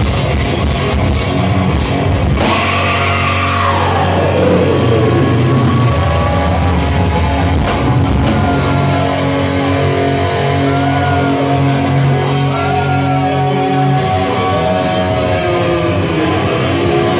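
A heavy metal band playing live through a club PA: electric guitars over a drum kit. About three seconds in, a guitar note slides a long way down in pitch. Held notes with small bends follow.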